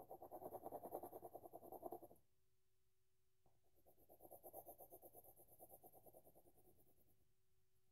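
Faint scratching of a swirled colored pencil shading on paper in rapid back-and-forth strokes. It stops about two seconds in, starts again a second or so later, and trails off near the end.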